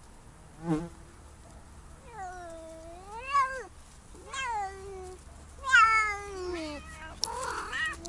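Siamese cat yowling while carrying a caught towline to its owner, the 'look, I caught something' call of a cat bringing back prey: one short meow, then three long drawn-out yowls that rise and fall in pitch. A rustle near the end.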